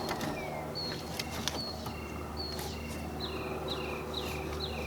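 A small bird calling over and over, each call a short high note dropping to a lower one, repeated slowly and then about twice as fast from about three seconds in. A few sharp clicks in the first second and a half.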